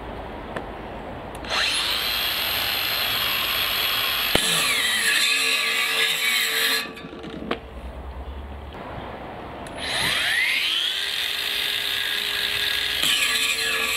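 18 V brushless cordless angle grinder spinning up with a rising whine to a steady high-pitched run, then dropping in pitch with a grinding noise as the wheel is put to work, and stopping near 7 s. It starts again about 10 s in, and the pitch drops again under load near the end.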